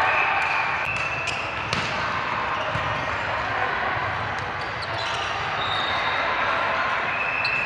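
Volleyball being struck or bounced several times on an indoor court, sharp knocks over a background of voices in a large gym.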